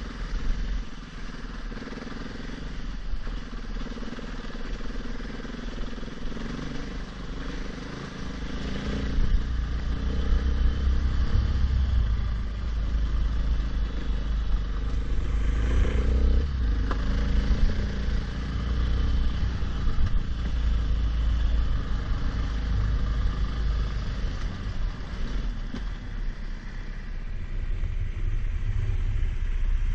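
Enduro motorcycle engine running under way, its pitch rising and falling with the throttle. It gets louder about a third of the way in.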